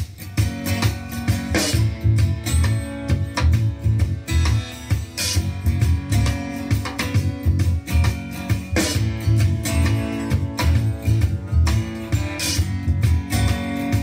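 Background music led by a strummed acoustic guitar, with regular strums and a strong bass line.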